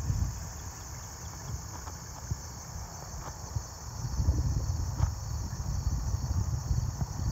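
Steady high chorus of insects chirring in the grass, with gusty wind buffeting the microphone as a low rumble that grows stronger about halfway through.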